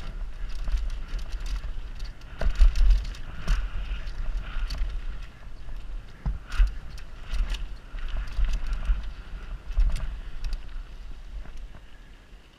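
Mountain bike ridden fast down a dirt trail, heard from a helmet-mounted camera: a steady low rumble from the tyres and the ride, with frequent clattering knocks and rattles from the bike over the rough ground. It grows quieter near the end.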